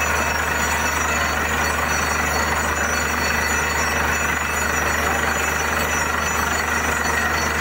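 Borewell drilling rig running steadily: a loud, even machine noise with a constant low engine hum and no pauses or knocks.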